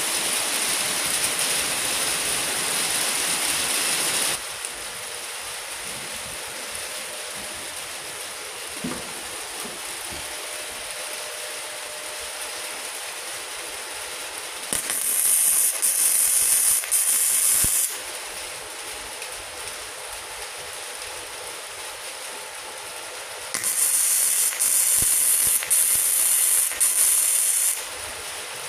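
Gasless flux-core MIG welder (MultiPro MIG/MMA/TIG 160 AS-MZ) arc welding: two runs of loud sizzling arc, about three and four seconds long, some eight seconds apart. A steady hiss fills the first four seconds.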